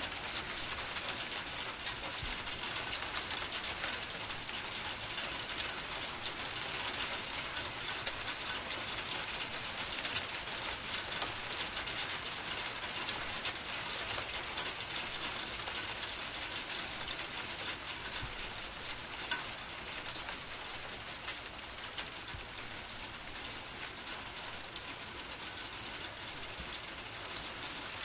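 Steady rain falling: a dense, even hiss of many small drops, with no thunder.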